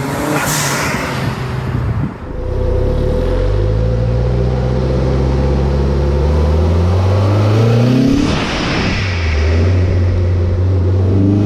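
Toyota 3S-GTE turbocharged four-cylinder revving, its pitch climbing for several seconds, then the TiAL blow-off valve venting with a whoosh of air as the revs drop about two-thirds through, and the engine settling back. The valve is opening and closing properly on its −11 psi spring. A rush of hiss opens the stretch, and another rev and whoosh begin at the very end.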